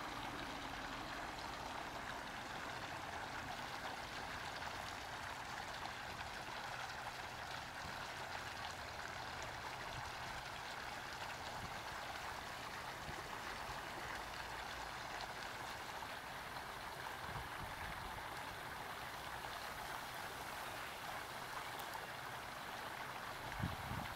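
Steady rush of running water with no break or change, with a soft low bump near the end.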